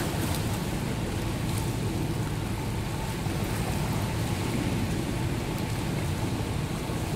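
Swimmers splashing through freestyle laps in an indoor pool: a steady wash of churning water.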